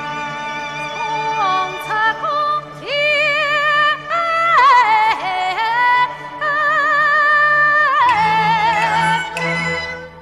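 Chinese traditional orchestra playing the instrumental introduction to a Yue opera aria: sustained chords, then a bowed-string melody with strong vibrato from about three seconds in, fading near the end.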